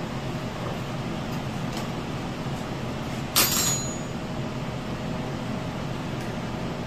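Steady shop hum with one short, sharp metallic clink about three and a half seconds in, ringing briefly.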